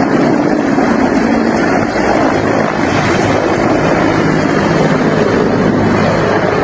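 Propeller aircraft engine running loud and steady under a dense rushing noise.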